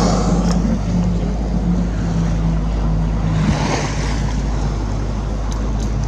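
Boat engine running with a steady low hum, over the wash of water and wind noise on the microphone; a brief rushing swell comes about three and a half seconds in.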